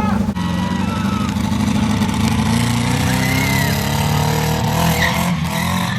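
Car engine running steadily, with faint rising tones partway through.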